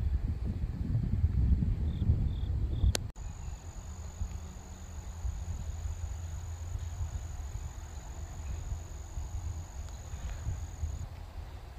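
An insect trilling in one steady high-pitched note for several seconds, stopping shortly before the end, over a low outdoor rumble. The rumble is louder in the first few seconds, up to a sharp click and a brief break in the sound about three seconds in.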